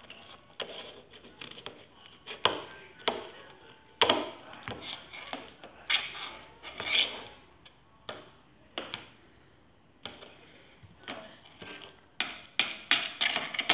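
A spoon knocking and clicking against a plastic bowl on a high-chair tray, in irregular sharp taps, loudest about four seconds in and in a quick cluster near the end.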